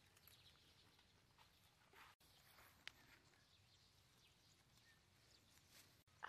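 Near silence, with faint rustling of fresh leaves being handled around a metal pan and a single light tick about three seconds in.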